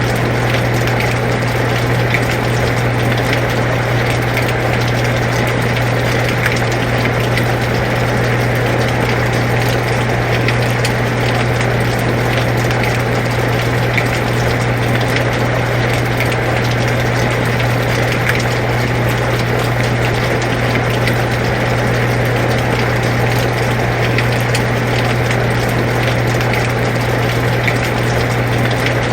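Air conditioner running with a steady low hum, mixed with the even hiss of falling rain and faint scattered drop ticks.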